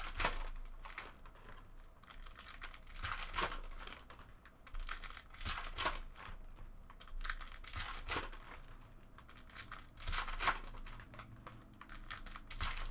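Foil trading-card pack wrappers crinkling and being torn open while cards are handled: a string of irregular crinkly rustles, with louder bursts every couple of seconds.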